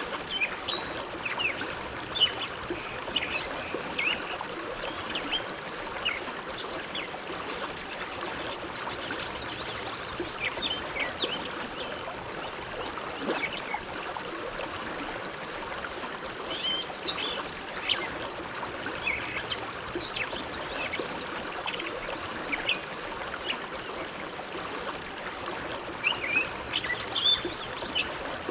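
Steady rush of the Bow River flowing, with small birds chirping in short, high calls that come in bunches, thickest in the first few seconds, again past the middle, and near the end.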